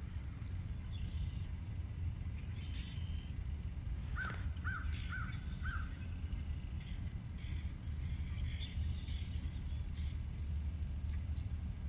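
An animal gives four short calls in quick succession about four seconds in, over a steady low rumble of outdoor background noise, with faint scattered chirps.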